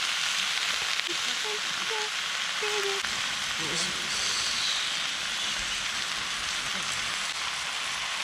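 Vegetables and shimeji mushrooms sizzling steadily in a hot pan as they fry.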